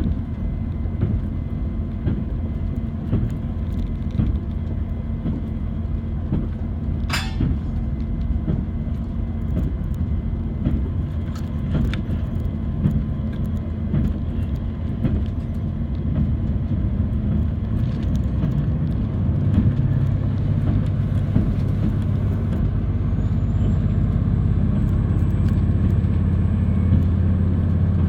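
Diesel train running, heard from inside the carriage: a steady low rumble with scattered clicks from the wheels and track. There is a sharp crack about seven seconds in. The running grows louder in the second half, and a faint high whine rises in near the end.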